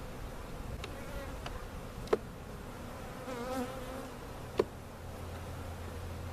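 A swarm of honey bees buzzing steadily around an open hive, with one bee droning close by for a moment near the middle. Three sharp knocks, the loudest sounds, come about one, two and four and a half seconds in.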